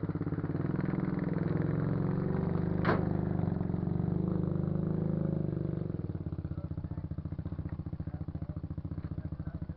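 An engine running steadily, then about six seconds in settling to a quieter, evenly pulsing idle. A single sharp click about three seconds in.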